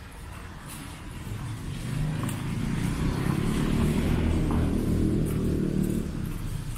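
A car drives past: its low rumble builds over a couple of seconds, holds, then fades away near the end.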